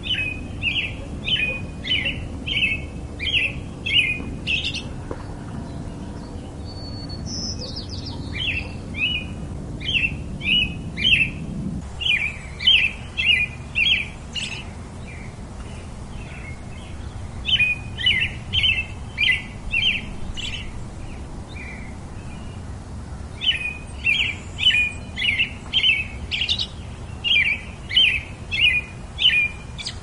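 A songbird singing in four bouts of short, evenly repeated clear notes, about two a second, with pauses between the bouts.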